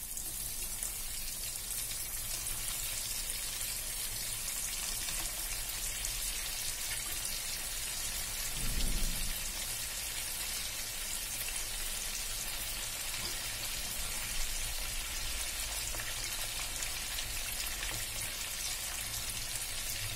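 Bread-crumb-coated cheese bread balls deep-frying in hot oil, a steady crackling sizzle of bubbling oil. A brief dull bump about nine seconds in.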